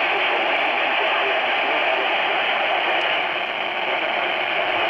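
Steady radio static: an even hiss from a radio receiver, with no voice coming through.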